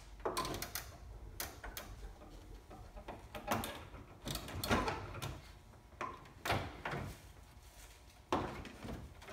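Land Rover LR3's front grille being unclipped and pulled off: irregular clicks and knocks as the retaining tabs are pushed down and the grille comes free.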